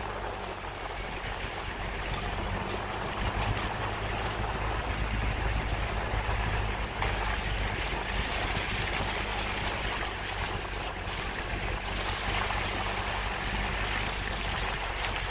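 A vehicle's engine runs with a steady low hum as it drives slowly along a rough dirt track, mixed with a constant rush of tyre and wind noise.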